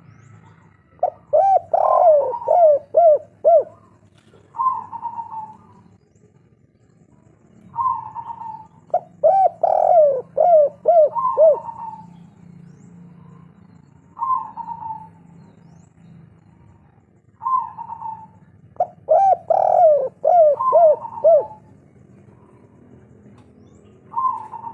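Spotted dove (tekukur, derkuku) singing its 'kuk 3' song: three phrases of rounded coos, each ending in a quick run of short notes, with single short coos between the phrases.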